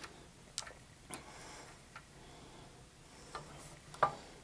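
Scattered light clicks and taps of hard plastic toy fragments being handled on a metal bench vise, about five in all, the loudest about four seconds in.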